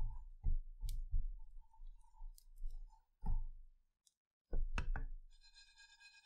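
Spatula knocking and scraping against a dry frying pan as sesame seeds are stirred while toasting: a string of short, soft knocks, several in quick succession, a pause, then a few more before it stops.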